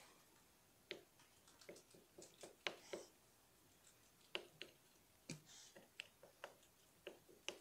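A string of faint, irregular clicks and taps: the wooden handle end of a makeup brush poking and scraping at eyeshadow and coconut oil in a small plastic compact pan, breaking the powder up to mix it.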